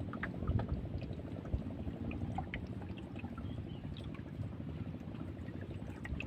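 Water sloshing and lapping around a small fishing boat, with scattered faint clicks.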